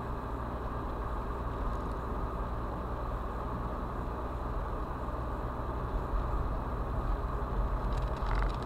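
Car driving along an asphalt road, heard from inside the cabin: steady tyre and engine rumble. A few light clicks near the end.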